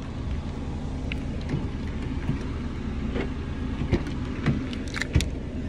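A car engine running steadily at low speed, a low even rumble, with a few scattered clicks and rustles of the phone being handled against a shirt.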